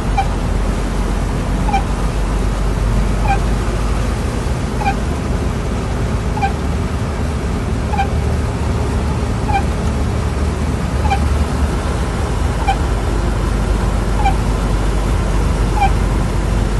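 Heavy rain falling on a car and the car's running noise, heard from inside the cabin. Over it, a short, slightly rising squeak repeats evenly about every one and a half seconds.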